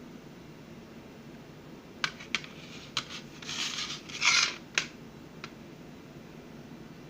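Plastic CD case being handled: a few sharp clicks and a short rustling scrape, loudest about four seconds in, then one more click.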